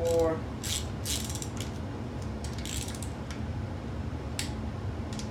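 Torque wrench ratchet clicking in short runs as ARP head bolts on an LQ4 6.0 cylinder head are tightened in the first 25 ft-lb round, with a short falling squeak at the very start and a single sharp click near the end.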